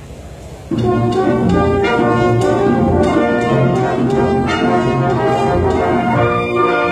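Symphonic concert band playing. After a brief hush, the full band comes in loudly less than a second in, with brass to the fore, and holds on in sustained chords.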